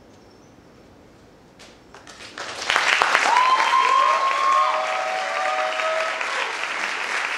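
Theatre audience applause breaking out about two seconds in and rising quickly to full, steady clapping, with several voices cheering over it.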